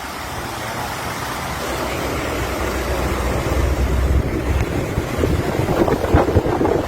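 Rushing floodwater with wind buffeting the microphone, a steady roar that grows louder and rougher toward the end.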